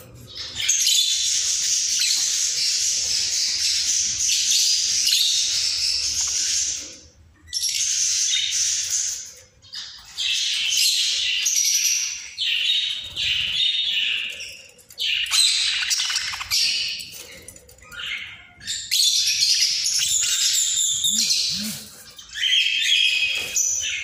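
Several budgerigars warbling and chattering: long runs of high chirps and squawks with brief pauses between them.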